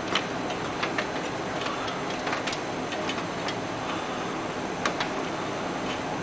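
Irregular light clicks and rustles of computer power-supply cables and their plastic connectors being handled and pushed about inside a metal PC case, over a steady background noise. The clicks come singly and in close pairs, about nine in all, the sharpest near the start and just before five seconds in.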